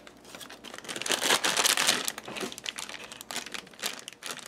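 Crinkling and crackling of a shiny black plastic blind bag being handled and worked open by hand, densest about a second in.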